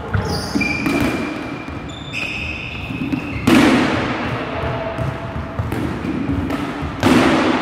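Rubber dodgeballs thrown, hitting and bouncing on a hardwood gym floor, each impact echoing in the hall, with two loudest hits near the middle and near the end. Short high sneaker squeaks in the first couple of seconds.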